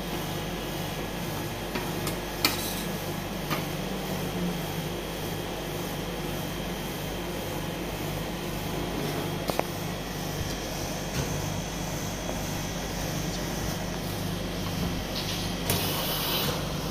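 A metal spatula scraping and tapping on a stainless-steel ice cream cold plate as thin frozen sheets are rolled, over a steady machine hum. There are a few sharp clicks, and a longer scrape near the end.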